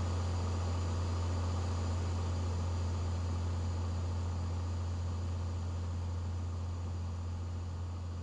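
Steady drone of a light aircraft's piston engine and propeller, a strong low hum under an even hiss.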